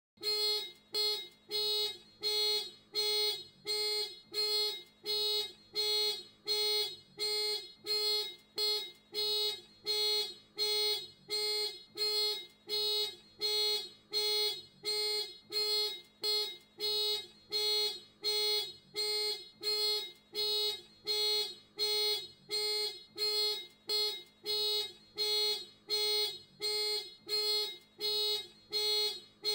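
Ford Fiesta car alarm sounding: a steady run of even beeps, about three every two seconds, each one a short held tone.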